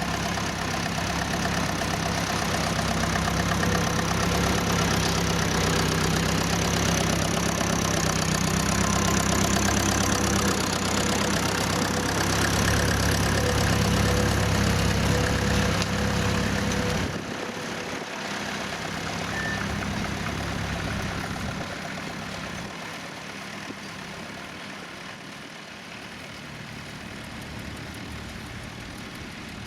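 Vintage tractor engine running steadily with a low, even throb. About halfway through the sound drops suddenly to a quieter engine.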